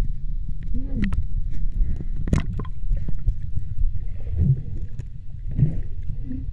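Muffled underwater sound from a camera held below the water's surface: a low rumble of moving water with gurgles and a few sharp knocks.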